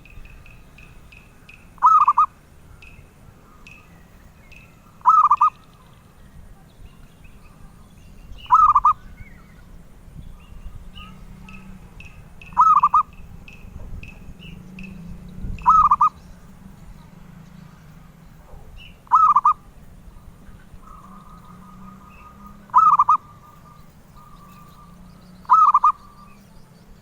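Zebra dove (perkutut) cooing: a short, loud coo repeated eight times, one about every three to four seconds, with faint higher chirps between the calls.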